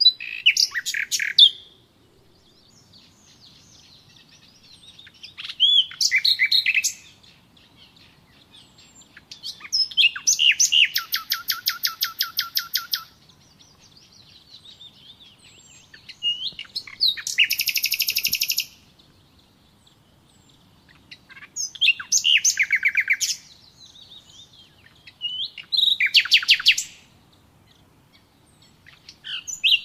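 Songbird singing short, high phrases about every four to five seconds, each a few quick notes running into a fast trill of rapidly repeated notes.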